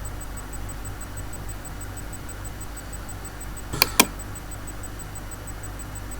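Steady low background hum and rumble, with a faint, even high ticking running through it. About four seconds in come two sharp clicks in quick succession.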